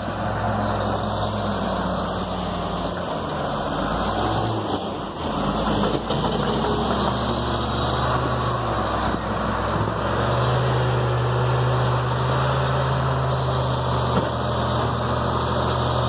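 Diesel engine of a Hyundai HL740-9S wheel loader running as the machine drives over dirt. Its note shifts and dips about a third of the way in, then rises and holds steadier and louder from a little past halfway as the loader moves toward the debris pile.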